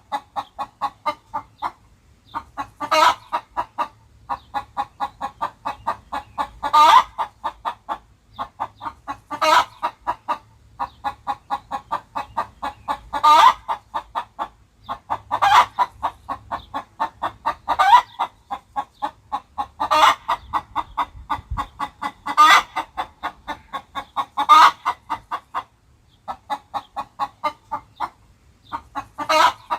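Cartoon chicken clucking sound effects: rapid runs of short clucks, about five a second, broken every few seconds by a louder, drawn-out squawk.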